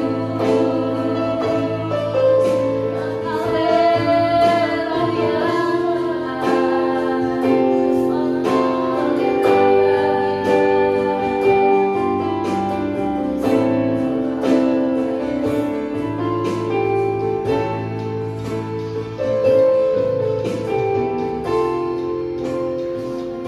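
Two women singing a worship song together over an electronic keyboard accompaniment, with several long held notes.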